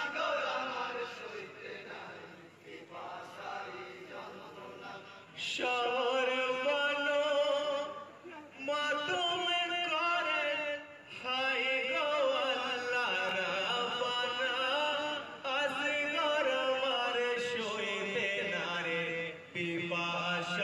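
Group of men chanting a marsiya, a Muharram elegy, in unison. It is quieter for the first few seconds and grows loud from about five seconds in, in long phrases with short breaks.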